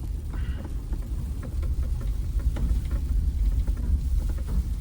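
Ford Bronco driving on a rough snowy off-road trail: a steady low rumble from the engine and tyres, with frequent small knocks and rattles.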